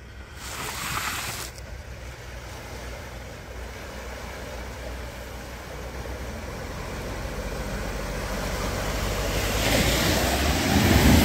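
Ford Ranger pickup wading through a flooded ford: a steady low engine rumble under the rush and splash of its bow wave, growing louder as it approaches and loudest near the end as it passes close by. Wind gusts on the microphone, briefly, about a second in.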